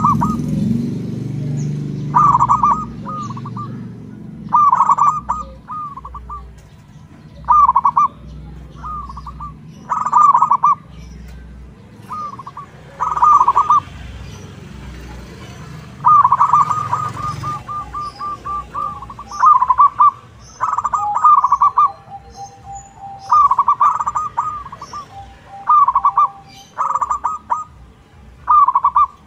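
Zebra dove (local perkutut) cooing in its manggung song: short, fluttering, stuttered coos, one phrase every two to three seconds. A low rumble underneath fades away around the middle.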